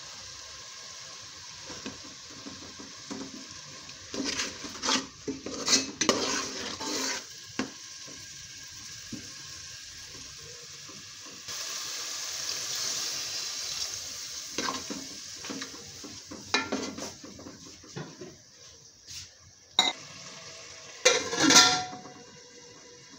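A metal spoon stirring and scraping lentils against a steel cooking pot, with frying sizzle. About halfway through, water is poured in and a steady hiss starts suddenly for a few seconds. Near the end, a metal lid clatters onto the pot.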